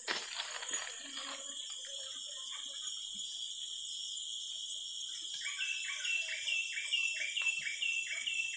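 Steady high-pitched drone of tropical forest insects, several shrill tones held together. From about halfway through, a repeated chirping call joins at about two chirps a second.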